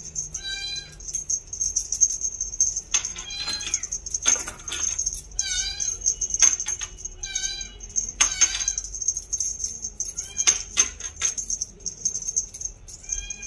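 Young Scottish Fold kitten mewing: short, high-pitched mews that bend in pitch, repeated every second or two.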